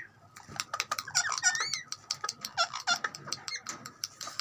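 A parrot making a rapid run of short squeaky chirps and clicks, some chirps bending up and down in pitch.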